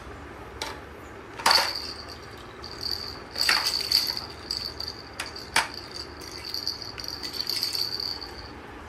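Hard plastic toys knocking on a tiled floor as they are handled: a few sharp knocks, the loudest about a second and a half in. A thin, high, steady tone comes and goes behind them for most of the time.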